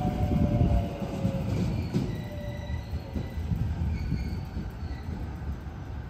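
JR electric multiple-unit train pulling out of a station and receding. Wheels rumble on the rails, and a high whine slides down in pitch and fades in the first few seconds.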